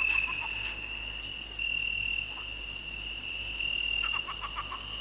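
Summer-night ambience: crickets trilling steadily on one high note, with a few frog croaks near the start and a quick run of croaks about four seconds in.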